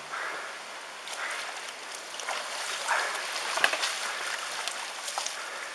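Tsunami floodwater rushing down a narrow street, a steady wash of flowing water with scattered small splashes and clicks.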